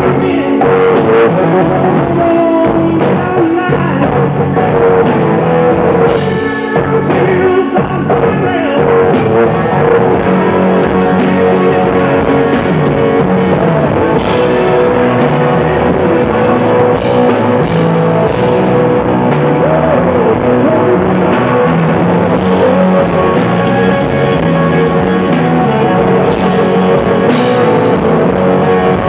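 Live rock band playing: electric guitar, bass guitar and drums, with a man singing lead vocals over them.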